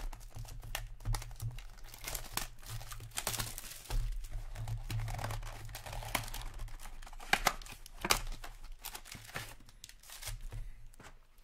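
Cardboard box of Upper Deck Allure hockey cards being torn open and its wrapped packs pulled out: a dense run of crinkling, rustling and tearing, with two louder snaps about seven and eight seconds in.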